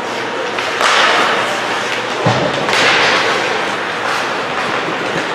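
Ice hockey skate blades scraping and carving the ice in hissing strokes, with one dull thud a little past two seconds in.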